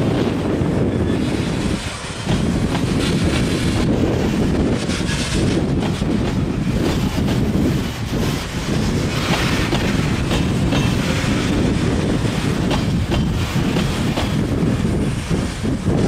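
Train of grain hopper cars rolling past close by: a steady low rumble with the wheels clicking over the rail joints.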